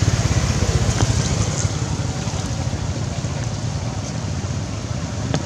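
Wind buffeting the microphone: a steady, uneven low rumble with a hiss over it.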